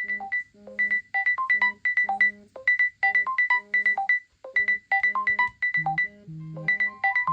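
Smartphone ringtone: a bright melody of short notes repeating in phrases over a bass line.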